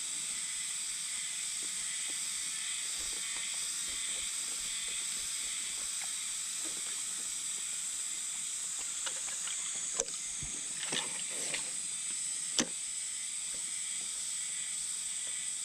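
Steady high-pitched hiss with a handful of sharp clicks and knocks, the loudest about ten seconds in and again about two and a half seconds later.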